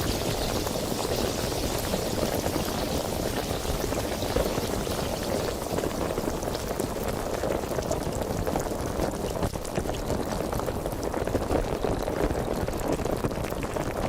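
Sparkling water fizzing: a steady, dense fizz of many tiny carbonation bubbles popping.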